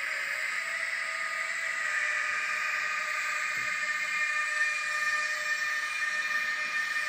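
Digital sound decoder in an N gauge BR182 Taurus electric locomotive model, playing the loco's running sound through a tiny sugar cube speaker. It is a steady electric whine of several high tones over a hiss.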